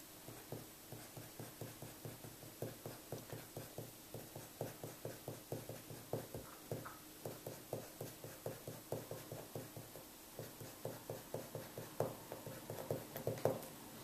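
Pencil drawing on paper: quick, rhythmic shading strokes, about three a second, with a few sharper strokes near the end.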